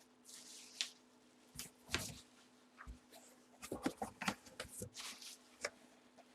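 Hands handling packaging: rustling, scraping and a run of sharp clicks and knocks, busiest in the middle, over a faint steady hum.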